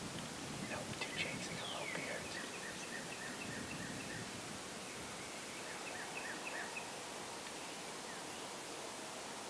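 Wild turkey calling: a run of short, evenly spaced notes lasting about five seconds, starting about two seconds in.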